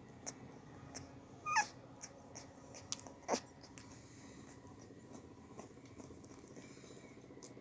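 Two-week-old English Springer Spaniel puppies squeaking: a short squeak with a break in pitch about a second and a half in, then a falling squeal a couple of seconds later. Soft scattered clicks in between.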